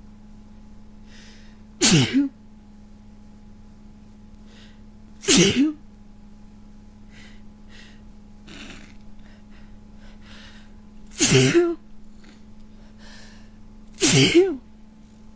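A person with a cold sneezing four times, each sneeze a sudden loud burst about half a second long, with faint breaths drawn in between. A steady low hum runs underneath.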